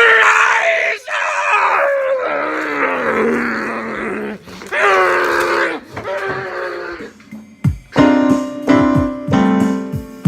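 A man's loud, drawn-out wordless groaning cries, several long calls falling in pitch. About three-quarters of the way through they give way to music with a steady drum beat.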